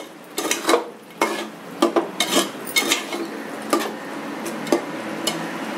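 A spoon stirring chicken masala in an aluminium pressure cooker, knocking and scraping against the pot in irregular clinks, over a steady sizzle of the masala frying.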